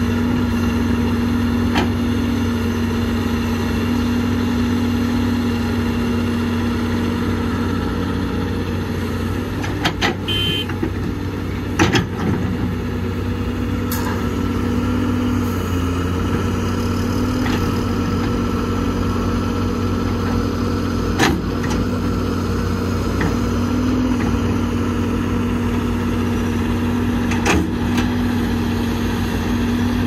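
Diesel engine of heavy earthmoving machinery running steadily, with a few sharp metallic knocks scattered through, the loudest about a third of the way in, one with a brief high squeal.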